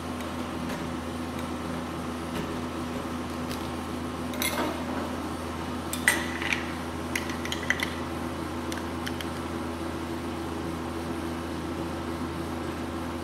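Metal tongs and a small bowl knocking and clinking on the chilled steel plate of a rolled ice cream machine: a brief scrape about four and a half seconds in, then a sharp clink and a handful of lighter knocks between about six and eight seconds. A steady machine hum runs underneath.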